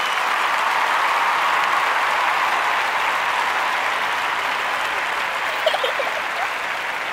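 Crowd applause and cheering, steady and dense after fading in, with a few short pitched cheers about six seconds in.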